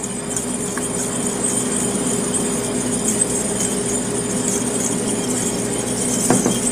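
A fork whisking mustard vinaigrette in a stainless steel bowl: a steady scraping swish with a few light clinks of the fork against the metal, over a constant low hum.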